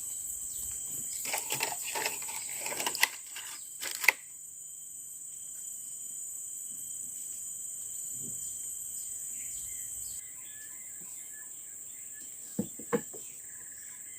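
Steady, high-pitched drone of a forest insect chorus, pulsing a few times a second. In the first four seconds there is a cluster of clattering clicks and rustles, ending in a sharper knock, and two sharp clicks come near the end.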